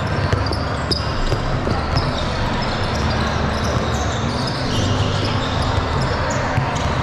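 Basketballs bouncing on a gym floor, with repeated short high sneaker squeaks and a background hum of crowd voices.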